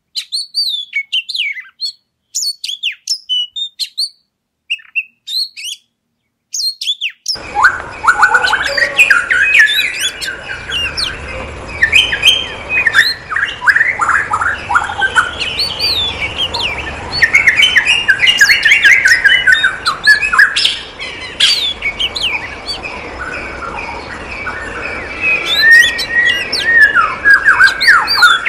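Many small birds in an aviary chirping and calling together. For the first seven seconds or so there are only scattered chirps with silence between, then a dense stretch of overlapping calls and quick runs of repeated notes.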